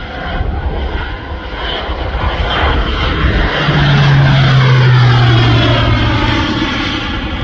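Crop-spraying plane flying low overhead. Its engine and propeller grow louder, peak about four to five seconds in, then drop in pitch as it passes over and moves away.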